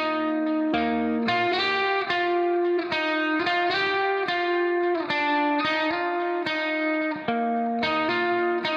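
Background music: a plucked guitar playing a steady sequence of chords.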